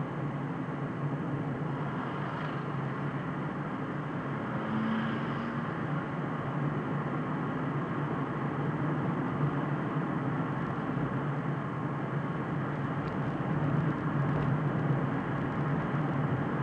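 Car driving at steady speed, heard from inside the cabin: a continuous low hum of engine and tyre road noise.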